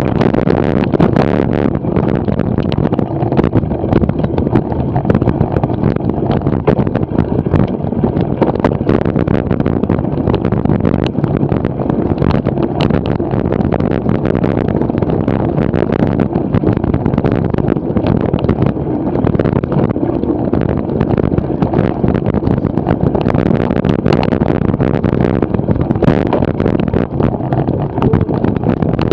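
Cyclo-cross bike ridden fast over a dirt and grass course: a steady rush of wind on the on-board camera's microphone and tyre noise, with frequent knocks and rattles from the bike over the bumps.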